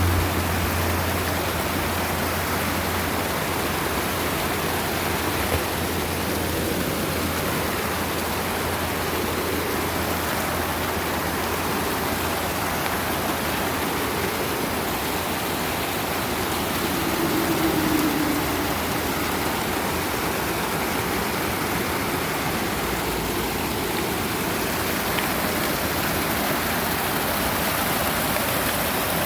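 A stream's water rushing steadily, with a slight swell about two-thirds of the way through.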